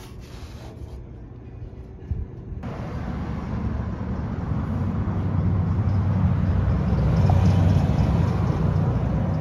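Street traffic: a low rumble of passing vehicles that starts a few seconds in and swells louder over the next several seconds.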